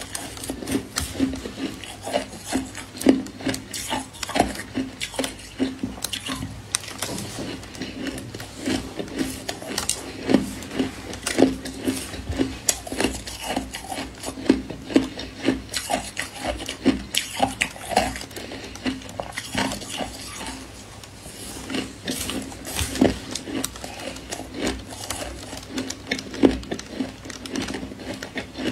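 Powdery white ice being chewed close to the mouth: a dense, irregular run of crisp crunches.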